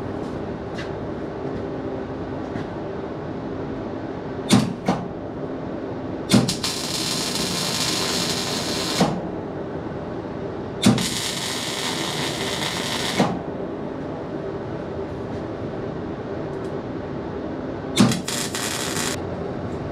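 Arc welder tack-welding a steel sprayer frame: a brief burst, then three crackling, hissing arcs of one to three seconds each, each struck with a sharp click, over a steady hum.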